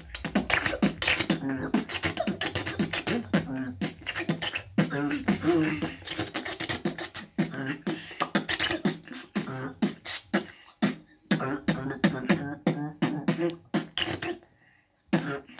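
Solo human beatboxing by a boy: a fast, dense run of mouth-made drum hits mixed with hummed, pitched vocal tones, thinning out and breaking off near the end.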